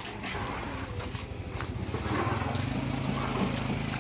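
A small engine running steadily, its low even hum growing stronger about halfway through.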